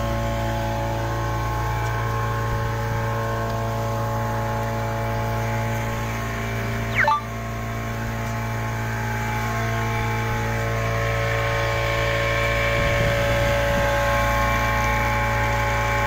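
40 hp outboard motor running steadily with the boat under way at speed, a continuous engine drone with several steady tones over a low rumble. A brief sharp sound cuts in about seven seconds in.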